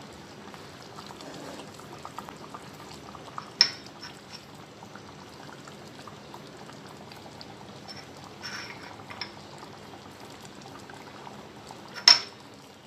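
Egg and potato curry simmering in a kadai, a steady soft bubbling. A sharp tap sounds about three and a half seconds in and a louder one near the end.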